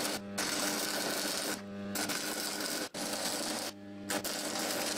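Small hobby stick (arc) welder welding chain links with welding rods: the arc crackles and sizzles in several runs of about a second each, broken by short pauses in which a low hum is left.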